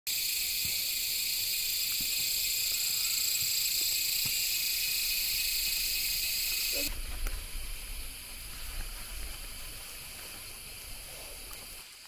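Cicadas in a forest chorus, a loud, steady, high-pitched buzz. About seven seconds in it drops suddenly to a fainter buzz over a low rumble, and it fades toward the end.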